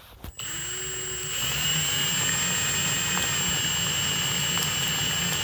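Cordless drill running steadily with a high whine, turning a 3D-printed plastic planetary gear drive of 177:1 reduction. It starts just after the beginning and picks up, louder and slightly higher, about a second in.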